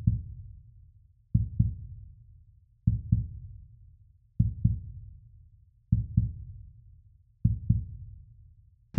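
A slow heartbeat-like beat of deep thumps, each a double knock, six pairs about one and a half seconds apart, each dying away into a low rumble.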